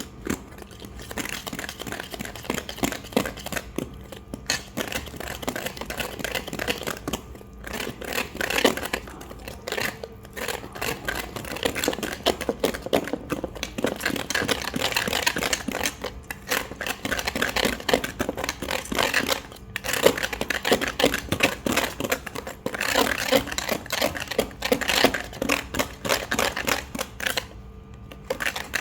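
Chocolate cake batter being mixed by hand in a bowl: fast, continuous scraping and clicking of the utensil against the bowl, stopping briefly a few times.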